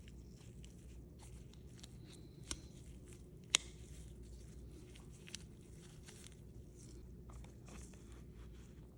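Faint rustling and crackly handling noise over a low hum, with a few sharp clicks, the loudest about three and a half seconds in.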